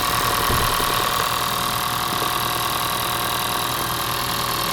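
Honda Vezel's four-cylinder petrol engine idling steadily, with a cylinder 3 misfire logged by the scan tool as code P0303.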